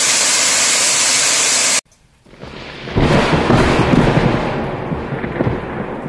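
Waterfall pouring down a rock face close by: a steady, full hiss of falling water that cuts off suddenly about two seconds in. After a brief near-silence, an uneven low rumble comes in for the rest.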